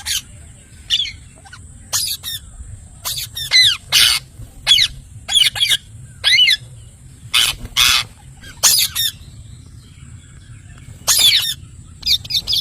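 Parrot squawking: short, sharp, high screeching calls, often several in quick succession, in clusters separated by brief pauses.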